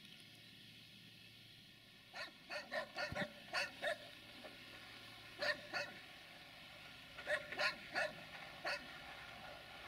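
A dog barking in quick runs of short barks, starting about two seconds in, with brief pauses between the runs.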